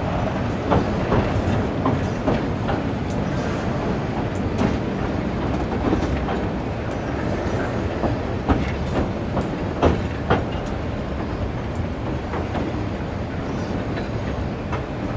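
Passenger train running over a steel trestle viaduct, heard from an open carriage window. The wheels give a steady rumble broken by irregular sharp clicks and clacks from the rails.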